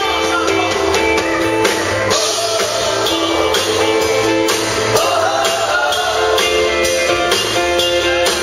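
Live country band playing: acoustic guitar, pedal steel guitar and drum kit over a steady beat, with a male voice singing.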